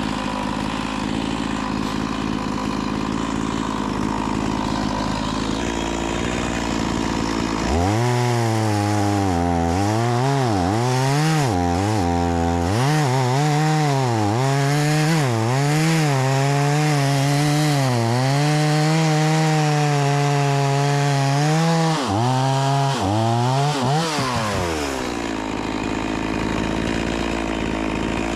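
Two-stroke Stihl MS 180 C chainsaw idling, then revved up about eight seconds in and cutting a log, its engine pitch dipping and recovering again and again as the chain loads up in the wood. Near the end it drops back to idle.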